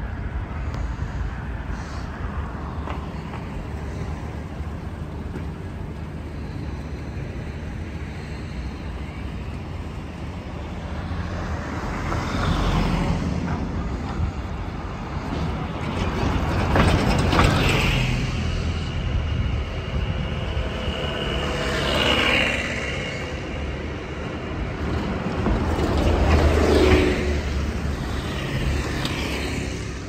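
Road traffic: a steady rumble with four vehicles passing one after another, each swelling and fading, the loudest about halfway through and near the end.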